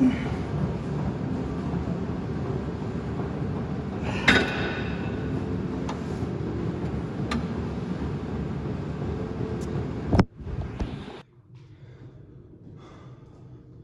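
A gym row machine's weight stack clanks a few times over a steady background hum, the loudest clank about four seconds in with a short ring. A sharp knock comes just after ten seconds, then the sound drops to a quiet small-room hush.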